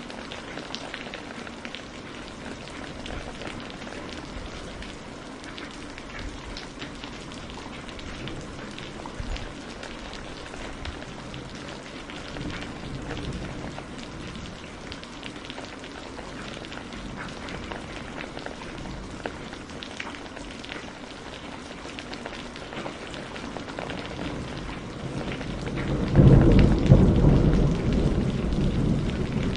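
Steady rain falling on a surface, with a loud low roll of thunder rising near the end.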